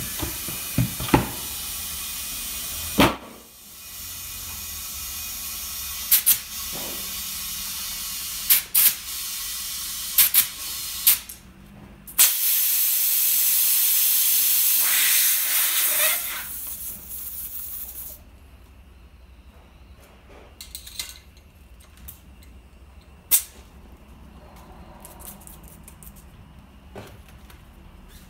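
Compressed air hissing through a tyre inflator gauge at the valve of a Michelin XWX 185/70 VR15 tyre as its pressure is adjusted, in long stretches broken by sharp clicks. The hiss is loudest in a stretch about halfway through, then stops, leaving only occasional clicks.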